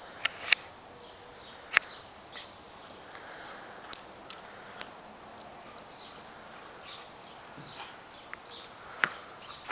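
Two dogs romping and chasing each other in snow: scattered sharp taps and thumps, with faint high chirps in the background.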